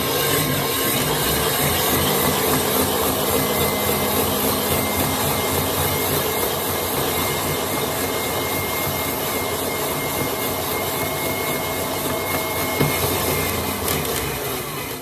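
KitchenAid stand mixer running on high, driving a shaved-ice attachment whose blade shaves a frozen ice puck into snow. There is a steady rasping grind over the motor's hum.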